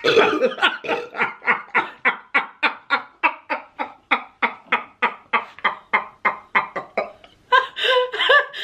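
A long fit of laughter: a steady run of short 'ha' pulses, about three or four a second, that slowly fades over about seven seconds. It is followed near the end by louder, higher-pitched laughing.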